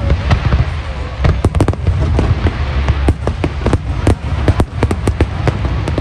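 Aerial fireworks shells bursting in a rapid barrage: many sharp, overlapping bangs over a continuous low rumble.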